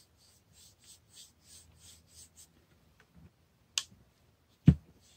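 Paintbrush stroking back and forth over watercolour paper, about three soft swishes a second, wetting the sheet for a wet-on-wet wash. A sharp click and then a louder short knock come near the end.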